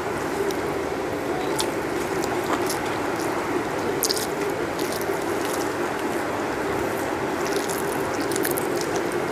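Hand-eating sounds picked up close on a clip-on microphone: fingers mixing rice on a steel plate and chewing, heard as scattered small clicks and squishes. Under them runs a steady mechanical hum.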